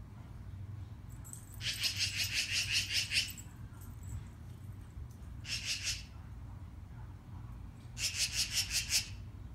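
A magpie chattering: three bursts of harsh, rapid calls of about eight notes a second, the first and last longest and a short one in between.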